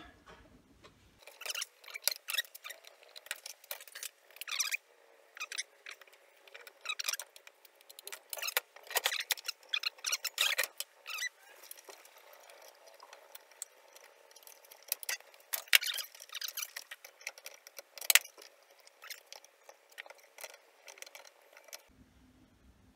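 Steel blade being fitted around the wheels of a Vevor portable metal-cutting bandsaw, making irregular light clicks, ticks and small scrapes as the flexing band is handled against the wheels and housing.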